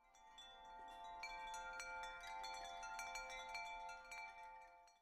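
Wind chimes ringing, with many bell-like metal tones sounding over each other and struck again at irregular moments. It fades in at the start and cuts off suddenly at the end.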